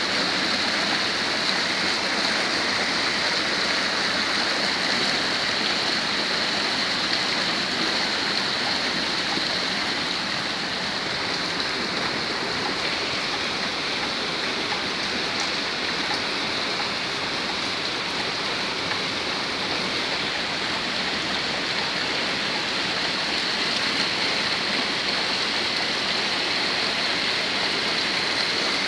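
Heavy rain falling, with muddy rainwater runoff rushing down an unpaved lane. The sound is a steady, even rush of water.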